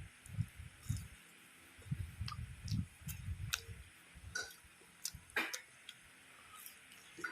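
A person chewing fried food close to the microphone: clusters of soft low chewing thumps, then scattered sharp clicks and crunches.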